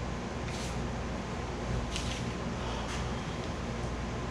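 Steady background hum of a small room, with a few faint, brief rustles about half a second, two and three seconds in.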